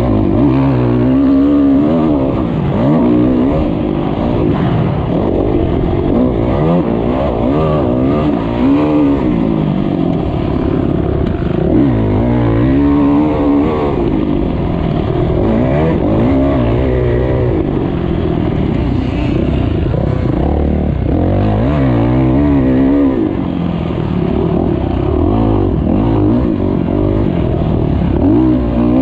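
Motocross bike engine, heard from on the bike, revving hard and dropping off again and again as the rider accelerates down the straights and shuts off for the turns, with the pitch rising and falling every few seconds.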